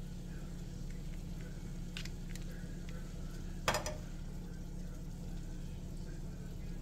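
Metal kitchen tongs clicking a few times as sliced pastrami is laid onto a chaffle on a paper plate, with one sharper click a little under four seconds in. A steady low hum runs underneath.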